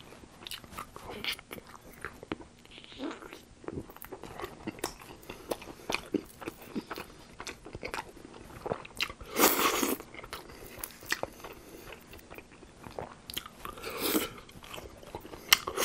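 Close-miked crunching and chewing of tempura-battered fried chicken wings: many short, sharp crackles of crisp batter, with two louder crunching bites, one about halfway through and one near the end.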